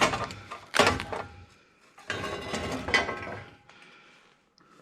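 Metal clanks and rattling from a sheet-metal console being pried apart by hand: a sharp knock at the start and another just under a second in, then a longer scraping rattle from about two seconds in, fading near the end.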